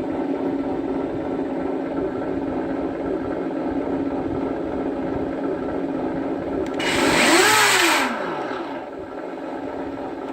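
Simulated engine sound from a Sense ESS-ONE sound module in an RC truck, played through its speaker: a steady idle, with one blip of revs that rises and falls about seven seconds in, the loudest moment.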